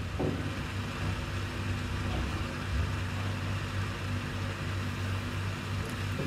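Steady background hiss with a faint low electrical hum, without distinct events.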